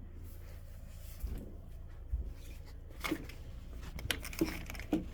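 Handling noise: faint rustling and a few scattered clicks over a low steady rumble.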